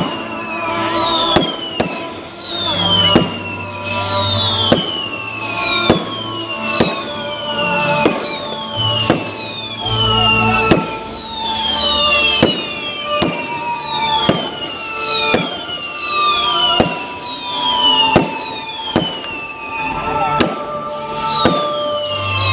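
Aerial fireworks going off in rapid succession, sharp bangs about once a second, each with a whistle that falls in pitch, with music playing alongside.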